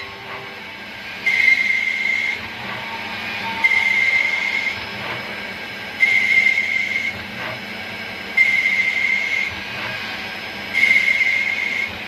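CNC machine cutting a brass shaft in repeated passes. Each cut is a high steady whine with hiss lasting about a second, coming about every two and a half seconds, five times, over the machine's running hum.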